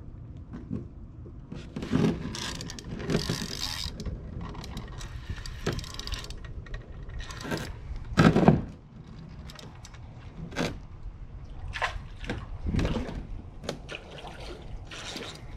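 Irregular handling noises as a fish is reeled in and landed beside a kayak: a spinning reel turning, knocks and rustles, and water splashing. The loudest burst comes about eight seconds in.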